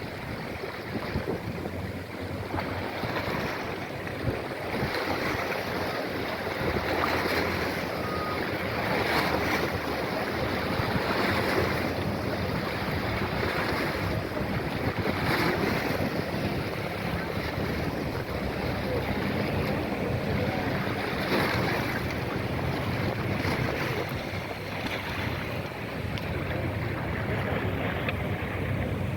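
Wind buffeting the microphone over the wash of waves, in steady noise that swells in gusts.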